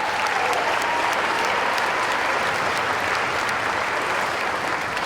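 Audience applauding, steady, then starting to thin out near the end.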